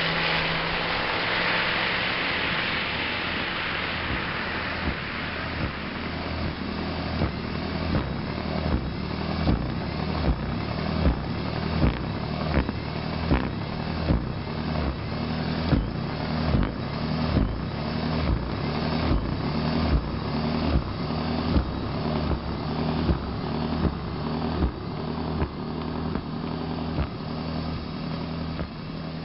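Toro Power Shovel electric snow shovel running steadily, with a hiss over the first few seconds and then a regular knocking a little more than once a second.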